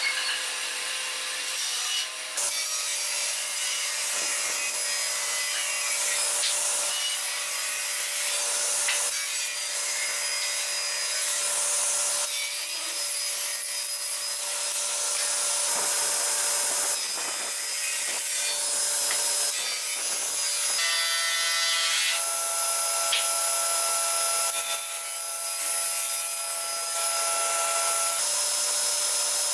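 Sliding table panel saw running and cutting wood, a steady whine under the noise of the blade going through the board.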